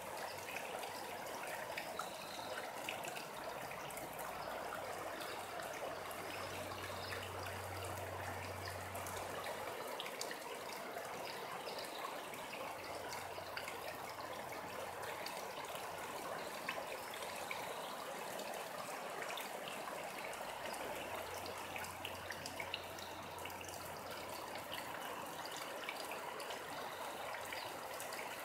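Running water flowing steadily, a trickling stream fed by recent rain. A faint low hum comes and goes beneath it.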